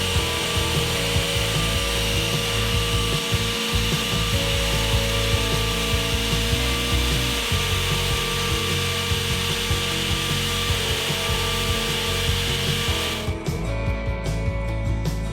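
A flooring tool runs with a steady hiss over background music, then stops about 13 seconds in, leaving only the music.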